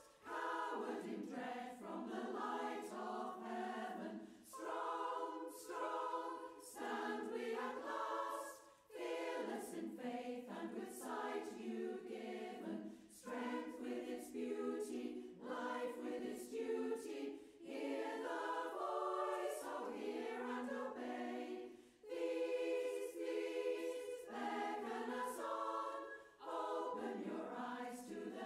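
A choir singing a cappella, in phrases of a few seconds with brief breaths between them.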